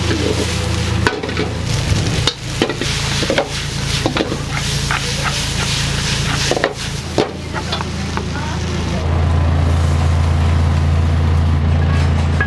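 Pasta sizzling in a frying pan as it is stirred and tossed, with many sharp metal clanks and scrapes of pan and utensils, over a steady low hum of kitchen equipment that gets louder about nine seconds in.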